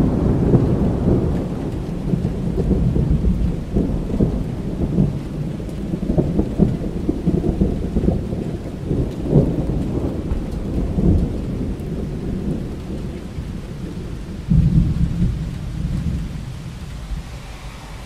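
Rolling thunder over steady rain: a long, uneven low rumble with crackling peaks, swelling again late on and then dying away, leaving the hiss of the rain.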